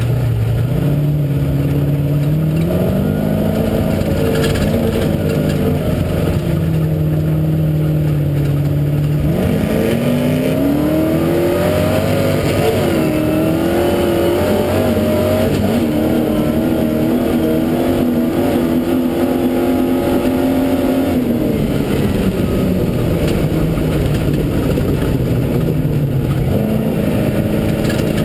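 Off-road vehicle's engine driving across open sand, heard from on board: its pitch climbs in steps as it accelerates through the gears, holds steady at speed, and drops about three-quarters of the way through as the throttle eases, over a continuous rushing noise.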